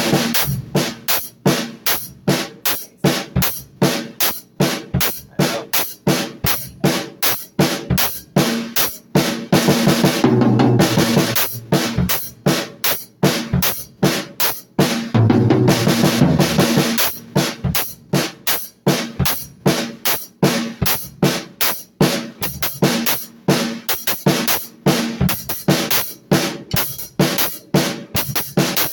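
Drum kit played in a fast, steady run of strikes, with longer ringing cymbal washes about ten seconds in and again about fifteen seconds in.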